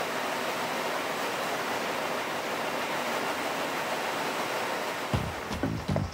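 A steady rushing noise holds evenly for about five seconds. Near the end, rapid horse hoofbeats come in.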